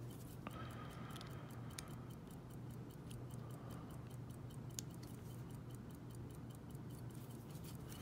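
A few faint, sharp metallic clicks as a brass lock cylinder and a flat metal tool are handled in the fingers, over a steady low hum and a faint regular ticking.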